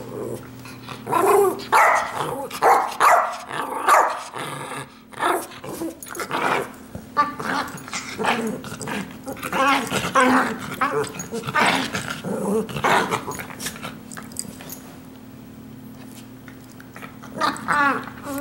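Two small dogs play-fighting, growling and barking in short bursts, with a lull of a few seconds near the end.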